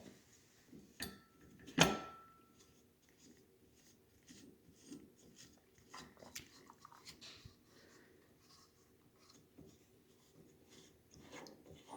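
Metal parts of a WonderMill Junior hand grain mill being handled and fitted together: a sharp metallic clank about two seconds in that rings briefly, then scattered light clicks, taps and rubbing.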